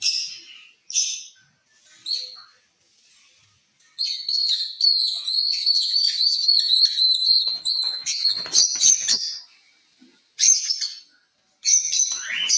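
Lovebirds calling: a few short high-pitched chirps, then a run of chattering calls lasting about five seconds, then more chirps near the end.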